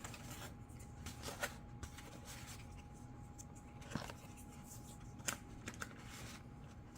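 Quiet handling noise of small plastic landing-gear parts being fitted onto a foam RC plane: a few light clicks and rustles scattered through, over a faint steady hum.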